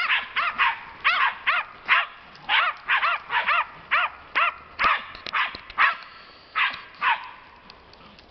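Small dogs barking rapidly at a wild boar, about three barks a second. The barking stops about seven seconds in.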